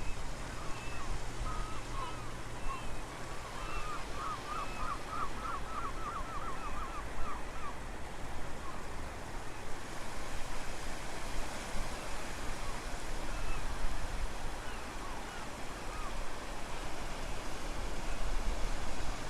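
Surf and wind at the shoreline, a steady rush with low rumbling from wind on the microphone. Birds call over it in short chirps, with a quick trill of about a dozen notes roughly four seconds in.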